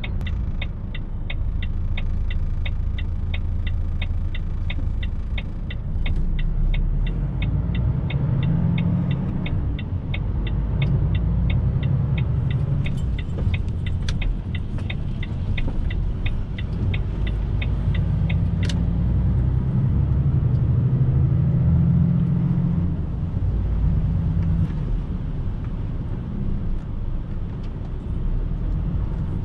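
Truck cab on the road: the lorry's engine and road noise rumble low and steadily, swelling and easing with the driving. Over this an indicator relay ticks rapidly and evenly, about three ticks a second, stopping after about eighteen seconds.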